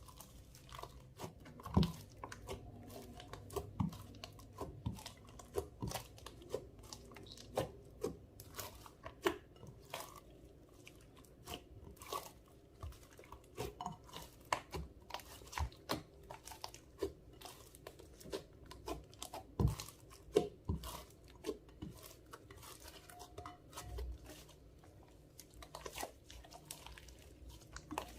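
Clear slime with makeup and glitter mixed in, being kneaded and stretched by hand, giving a run of irregular sticky pops and clicks, a few each second.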